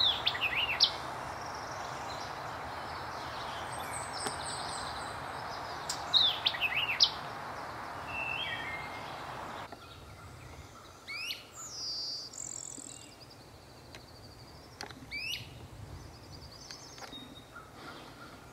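Songbirds singing over a steady background hiss. There are loud, sharp sweeping notes about a second in and again around six to seven seconds. The hiss drops away at about ten seconds, and thinner, higher phrases follow.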